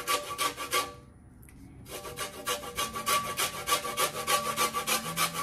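Lemon being zested on a stainless steel box grater: quick rasping strokes, several a second, with a pause of about a second near the start before the strokes resume.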